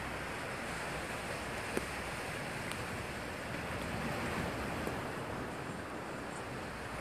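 Sea surf washing and breaking on a boulder shore, with steady wind noise on the microphone. A single short click about two seconds in.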